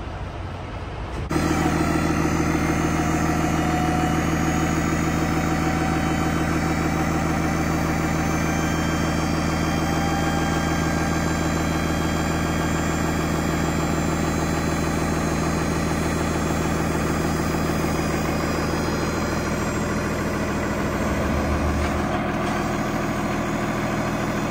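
Truck engine idling steadily, with a brief low thump near the end.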